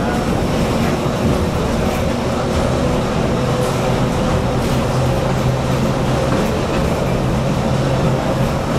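A 3-foot (914 mm) gauge passenger train hauled by 1969 General Electric diesel locomotives running steadily along the track: a continuous rumble with a low, even engine hum.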